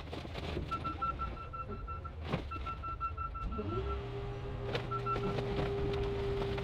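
Car crusher working as its lid presses down on a pickup truck: a low engine drone and a hydraulic whine that slides up and then holds steady from about halfway, with a couple of sharp metal cracks. A rapid high beeping comes and goes over it.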